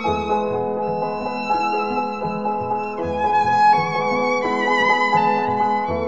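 Background violin music: a bowed violin plays a melody of held notes with vibrato over a lower accompaniment.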